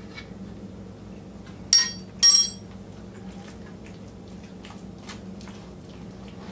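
A spoon clinking sharply twice against a mixing bowl about two seconds in, with faint light scraping of stirring and a low steady hum around it.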